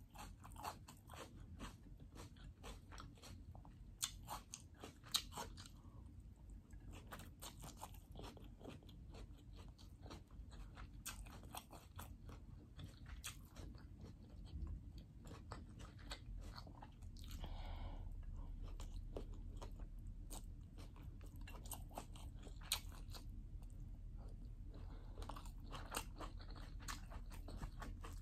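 Close-up chewing and biting of fried chicken and rice, a steady stream of small crunchy, moist clicks. About two-thirds of the way in, a low steady hum comes in underneath.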